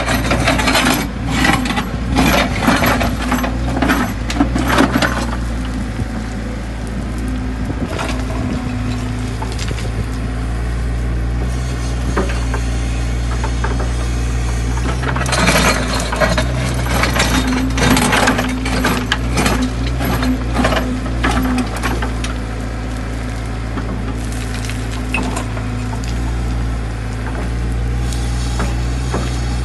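Excavator's diesel engine running steadily while its ripper bucket digs and scrapes through rocky gravel. Stones clatter and knock against the steel bucket in two busy spells: one in the first few seconds and one about halfway through.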